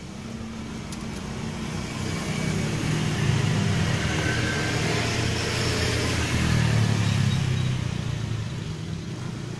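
A motor vehicle's engine running, growing louder over the first few seconds and easing off near the end, as a vehicle passes by.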